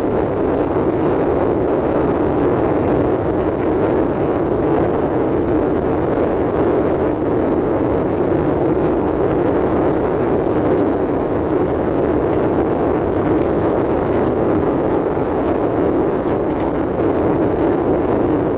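Steady rushing noise inside a moving car: road and wind noise heard from the cabin, even in level throughout.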